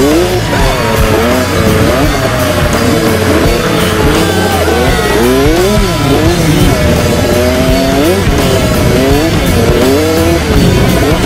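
Kawasaki KX65 two-stroke dirt bike engine revving up and down again and again, its pitch rising and falling about once a second, with music underneath.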